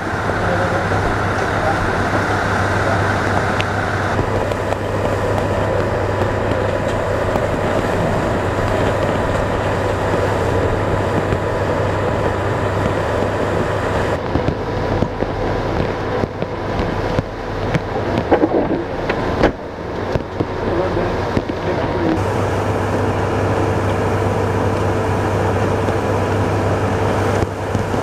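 Steady vehicle cabin noise with the engine running, a constant low hum under an even rushing noise, heard from inside the vehicle.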